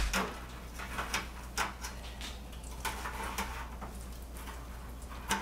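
Metal kitchen tongs clicking and scraping against a wire rack on a sheet pan as a piece of fried chicken is handled, a few scattered clinks over a steady low hum.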